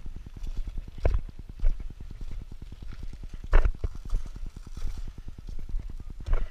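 A rapid, even low thumping, about ten beats a second, with a few sharp crunches on top, the loudest about three and a half seconds in. The crunches fit footsteps on the cooled, glassy crust of pahoehoe lava.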